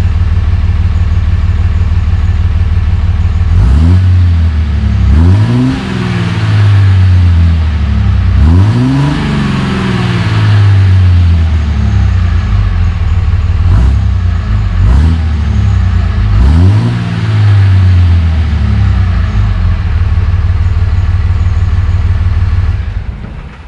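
Dodge pickup's Cummins diesel engine heard at the tailpipe of a new 4-inch Banks Monster cat-back exhaust with muffler: idling steadily, then revved in several short blips from about four seconds in until about eighteen seconds, then settling back to idle. The note is muffled, with no loud drone.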